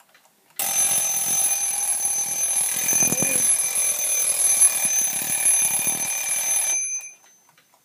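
1937 twin-bell alarm clock ringing its double-bell alarm, loud and continuous; it starts about half a second in and cuts off suddenly about a second before the end.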